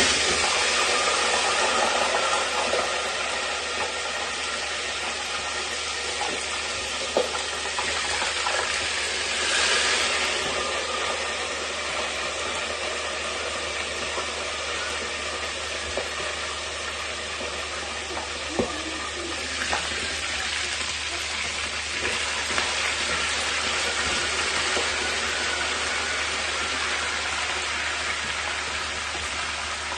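Chicken leg pieces deep-frying in hot oil in a wok: a loud, steady sizzle, swelling briefly about ten seconds in. A few light clinks of a metal skimmer against the pan.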